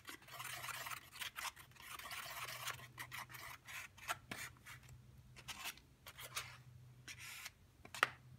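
Paintbrush stirring acrylic paint in a well of a plastic egg-carton palette, mixing yellow and blue into green: a faint, scratchy rubbing with many light taps of the brush against the carton. A sharper click about eight seconds in.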